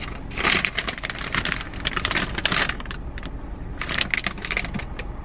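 A paper fast-food bag rustling and crinkling as it is handled, a run of irregular crackles.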